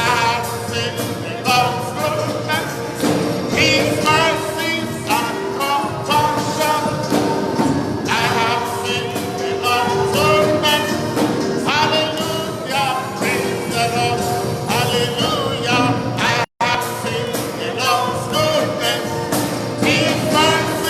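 Church worship music: singing over instrumental accompaniment, with the sound cutting out completely for a moment about sixteen seconds in.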